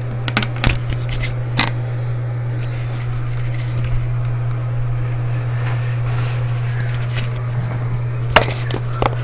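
Metal toilet tank bolts and washers clinking and tapping, a few sharp clicks in the first couple of seconds and again near the end, over a steady low hum.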